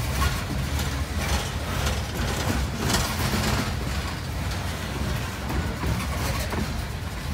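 Coal hopper cars of a freight train rolling past close by: a steady low rumble of steel wheels on the rails with irregular clatter.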